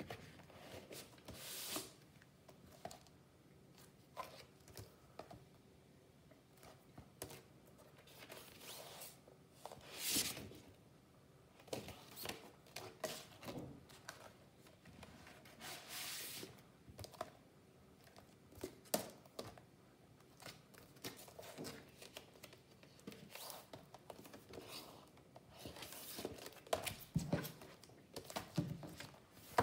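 A vinyl LP's jacket and printed inner sleeves being handled: irregular rustling and swishing as the sleeves slide and rub, with scattered light knocks against the wooden table.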